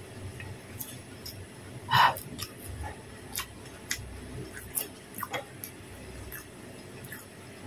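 A person eating rice with her fingers: scattered small clicks and mouth sounds of chewing, with one louder short sound about two seconds in.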